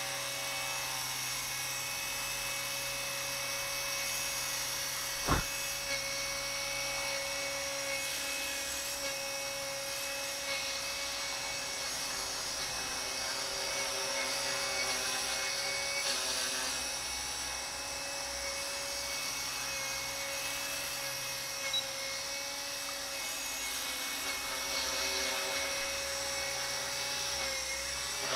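Align T-Rex 250 electric RC helicopter running steadily in flight: the high whine of its brushless motor and drive gears with the rotor buzz, holding an even pitch, with a sharp click about five seconds in.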